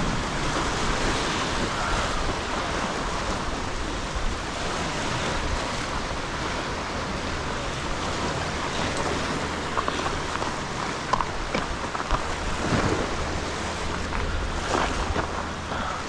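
Waves washing against jetty rocks, with wind buffeting the microphone. A few brief clicks come in the last few seconds.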